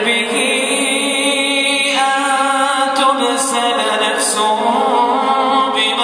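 A man reciting the Quran in a melodic chanted style, holding long drawn-out notes, stepping to a new note about two seconds in and wavering in pitch in the middle.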